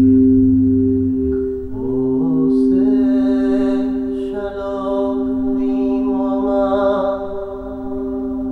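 Quartz crystal singing bowls ringing with two steady, sustained tones, and from about two seconds in a voice singing a slow chant in long held notes over them.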